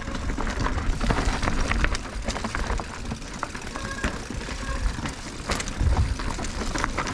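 Mountain bike riding down a rocky technical trail: tyres rolling and knocking over rock, with the bike's chain and frame clattering in many quick clicks and knocks over a steady low rumble.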